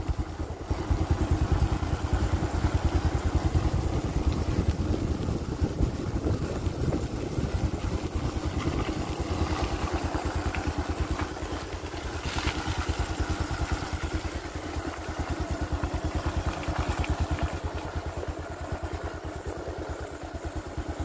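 Motorcycle engine running steadily under way, recorded from on the bike, with a rapid, even low pulsing from the exhaust.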